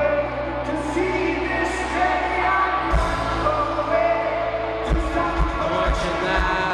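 Live rock band playing with a singer's voice over guitars, bass and drums.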